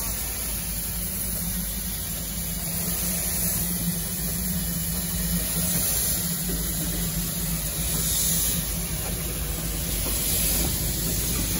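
Narrow-gauge steam locomotive hissing steam steadily, with a low hum underneath.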